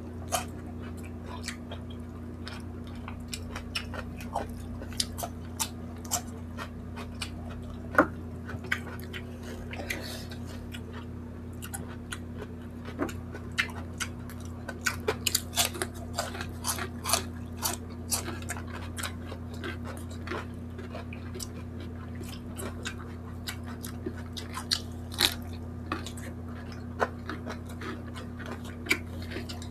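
Close-miked chewing and lip-smacking of two people eating barbecued chicken and rice with their hands, with many short wet clicks of the mouth throughout. A steady low hum runs underneath.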